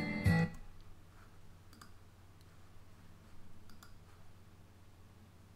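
A short vocal sound at the very start, then a few faint, scattered clicks over a low steady hum.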